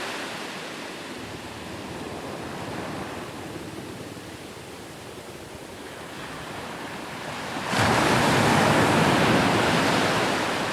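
Ocean surf on a shore: the wash of a spent wave ebbing quietly, then a new wave breaking suddenly about three quarters of the way through, followed by a loud rushing wash.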